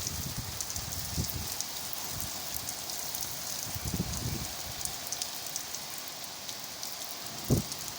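Heavy rain pouring down: a steady hiss full of small drop ticks, with a few low thumps, the loudest near the end.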